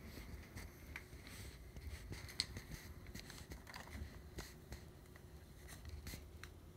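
Faint, irregular light knocks and clicks, half a dozen spread out, over a steady low rumble.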